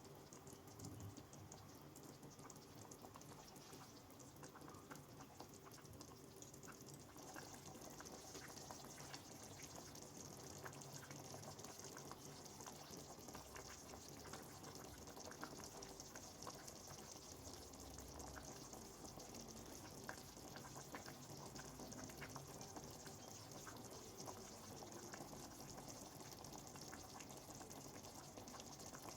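Faint steady hiss of food cooking on the stove, with scattered small pops and clicks; the hiss grows a little stronger about a quarter of the way in.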